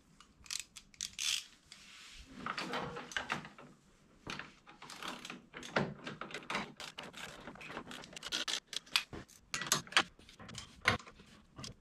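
Socket ratchet clicking in short, irregular runs, with metal tools clinking, as a rail-guard bolt on a snowmobile's rear suspension rail is tightened down.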